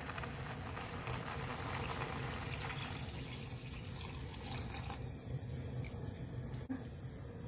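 Water poured in a steady stream into a stainless steel pot of stir-fried pork and kimchi, splashing into the stew. The hiss thins out about three seconds in.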